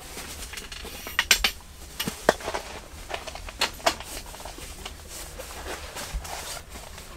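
Irregular clinks and knocks of camp tableware and cookware being handled, over a low steady rumble.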